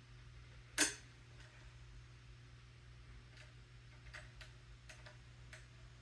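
One sharp click about a second in, then a few faint, irregular ticks from the metal parts and hardware of a step stool being handled and fitted during assembly, over a steady low hum.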